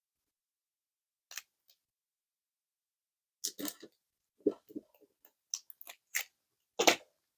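Glue dots being peeled off their paper-backed roll and pressed on by hand: a scatter of short crinkles and crackles of paper and plastic, the loudest one near the end.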